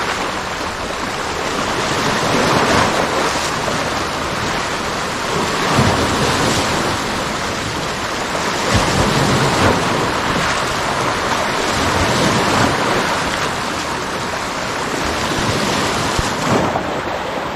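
Sea waves washing in, swelling and easing every few seconds, with wind on the microphone.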